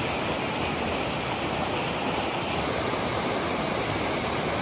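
Mountain stream rushing over boulders and through rapids, a steady, even rush of water. The stream is running high and swollen after heavy rain.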